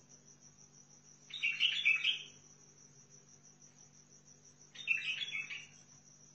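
White-eared bulbul singing two short warbled phrases, each about a second long and about three seconds apart, over a steady high-pitched buzz.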